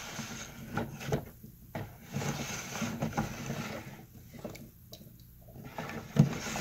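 Wooden spoon stirring fermenting tej, honey wine with gesho twigs, in a bucket: liquid sloshing in uneven strokes with occasional knocks of spoon and twigs, a sharper knock near the end.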